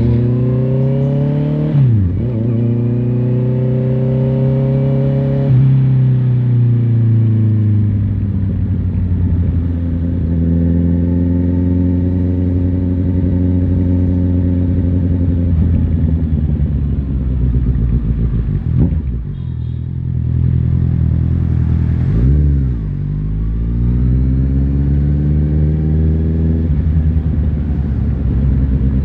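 Honda CBR650R's inline-four engine accelerating through the gears while riding. The pitch climbs and drops at upshifts about 2 and 5.5 seconds in, holds fairly steady, eases off with a couple of quick rev changes past the middle, then climbs again to another upshift near the end.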